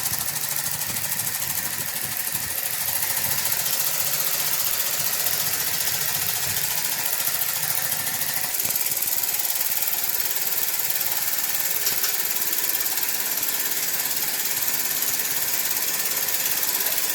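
Homemade steam engine built from a refrigerator compressor running fast, with a rapid, steady knocking and a constant hiss.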